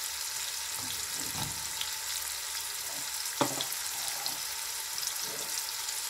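Chopped onions, green chillies and curry leaves sizzling in hot oil in a frying pan: a steady high hiss, with one light knock about three and a half seconds in.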